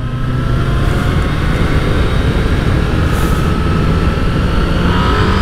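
Honda CBR900RR Fireblade's inline-four engine pulling under load as the bike accelerates, its pitch climbing slowly and steadily, over a loud rush of wind.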